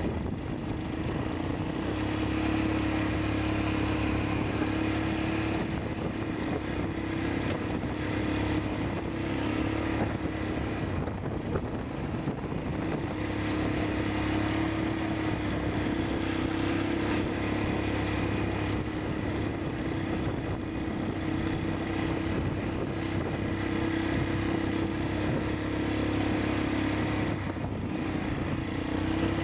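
ATV engines running steadily as the quad bikes ride along, an even motor hum without sharp revving.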